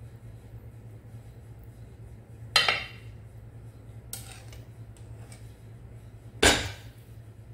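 A metal wire whisk and skillet clanking against each other and a ceramic baking dish as thick gravy is scraped out of the pan: two sharp clanks, about two and a half seconds in and near the end, with a fainter one between, over a low steady hum.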